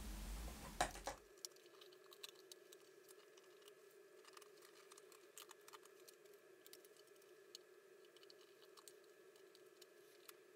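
Near silence, with faint scattered clicks and taps of a humbucker pickup and pickguard being handled while the pickup is fitted, over a faint steady hum. A louder rustle and a couple of sharp clicks come in the first second or so.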